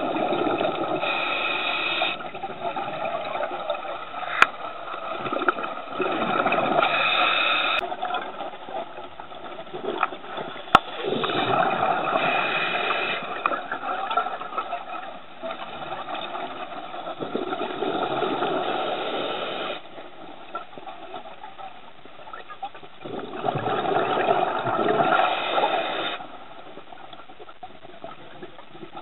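Scuba diver's exhaled bubbles from the regulator heard underwater: a rushing, bubbling sound that comes in bursts about every five to six seconds, with two sharp clicks.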